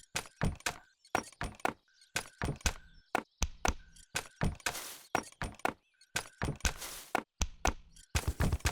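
Cartoon percussion from a foot brace and other objects being knocked and tapped in a steady improvised beat, about three to four clacks a second. A few short crash-like hisses come in over the second half.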